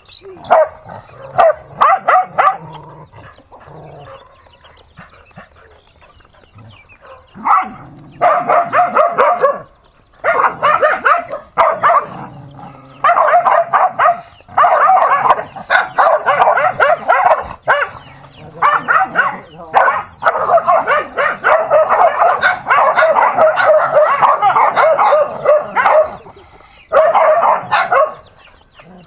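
Several dogs snarling and barking at each other in a scuffle, in long, loud bouts with a quieter stretch of a few seconds near the start.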